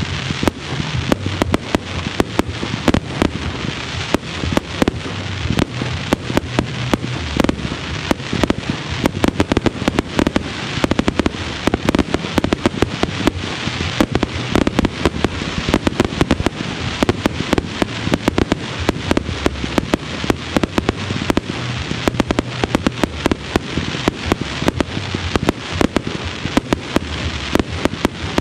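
Consumer-grade (1.4G) fireworks firing a dense, continuous barrage: a rapid, unbroken string of shots and aerial bursts, several bangs a second.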